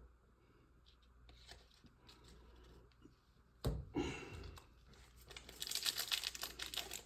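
Trading card pack wrapper being handled and torn open, with a sharp knock about three and a half seconds in and louder crinkling near the end.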